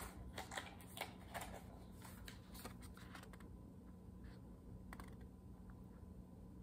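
Faint scattered light clicks and taps, most of them in the first three seconds, over a low steady hum.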